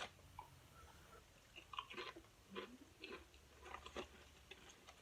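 Faint chewing and crunching of crisp chips close to the microphone, a few short crackly crunches about two to four seconds in.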